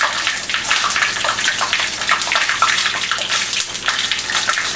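Hot oil spattering and crackling hard in a covered frying pan, a dense steady sizzle full of fine pops, violent because frozen cockroaches have gone into very hot oil.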